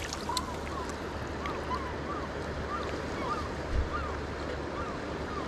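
Steady rush of the Kenai River's current flowing past the bank, with a faint rise-and-fall chirp repeating about twice a second and one soft low thump nearly four seconds in.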